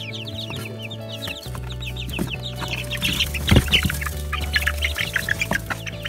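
Young chicks peeping in a stream of short, high, falling peeps that grow louder and busier from about two seconds in. A single thump comes about halfway through.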